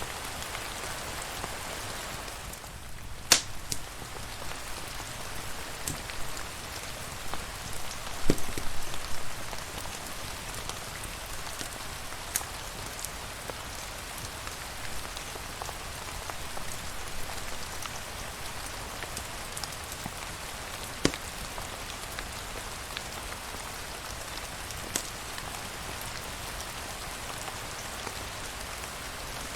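Steady rain falling, with a few sharp, isolated pops or clicks, the loudest about three and eight seconds in.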